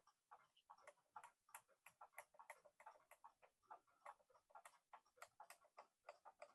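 Small antique cuckoo clock movement ticking, freshly oiled and reassembled and running again; quiet, even ticks about three a second.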